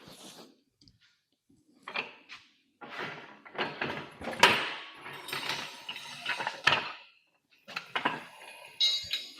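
Loose steel bolts, washers and hand tools being handled: a run of metallic clinks and clatters, busiest in the middle, with a short high ringing near the end.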